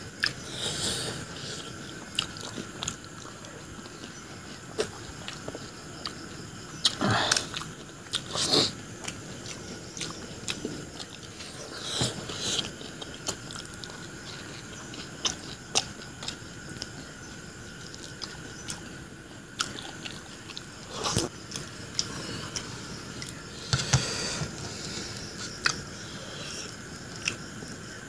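A person biting into and chewing pani puri, crisp fried puri shells stuffed with mashed potato: crunches and chewing in uneven bursts every few seconds.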